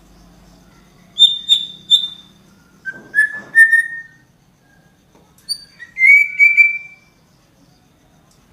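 A songbird singing three short phrases of clear whistled notes, each phrase two or three repeated notes: the first high, the second lower, the third pitched in between.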